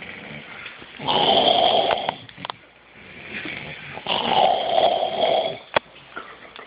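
Loud snoring, two long snores about three seconds apart with quieter breathing between them, and a single sharp click near the end.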